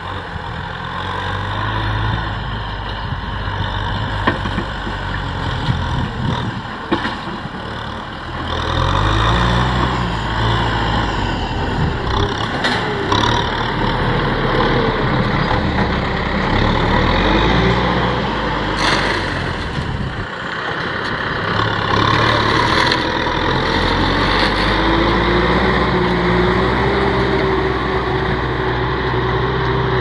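Kubota M6040SU tractor's four-cylinder diesel engine running under load as it pulls a disc plough through the soil, its pitch rising and falling now and then. A few sharp knocks stand out.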